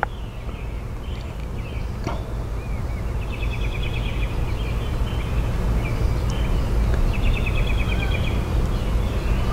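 Outdoor ambience: a steady low rumble that slowly grows louder, with a bird trilling twice in the background, each trill lasting a second or two. There is a faint click at the start and another about two seconds in.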